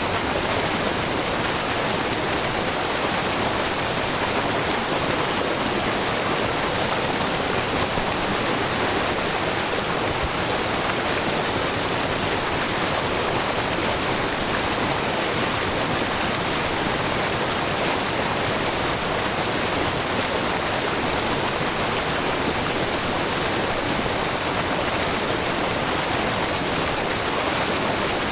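Shiraito Falls, a wide, low waterfall where spring water spills over the rock face as a curtain of many thin streams, giving a steady, even rush of falling and splashing water.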